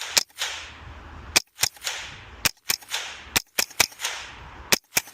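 Smith & Wesson M&P 15-22 semi-automatic .22 rifle fired unmoderated in a rapid string of about a dozen sharp cracks, several a second, with 21-grain copper rounds that go with a crack even with the moderator on.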